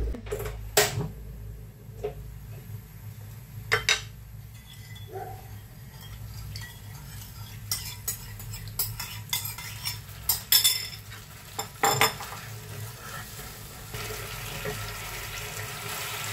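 A metal spoon and a ceramic bowl clink and knock several times as a tomato-based sweet-and-sour sauce is stirred and poured into a frying pan. Near the end the sauce starts to sizzle and bubble in the hot pan while a wooden spatula stirs it.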